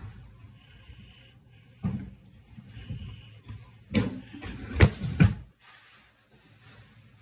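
Knocks and clatter of household objects being handled, with two louder thuds about five seconds in, then a quiet stretch.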